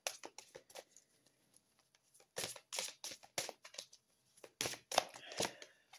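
Oracle cards being handled and shuffled: quick, crisp card flicks and rustles coming in three clusters, near the start, around the middle and near the end.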